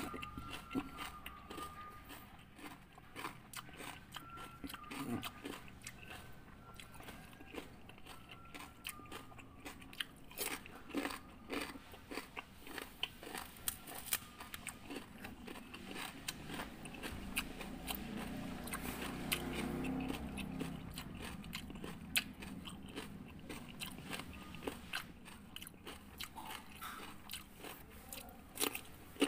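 A person biting and chewing raw cucumber close to the microphone: a run of crisp, irregular crunches.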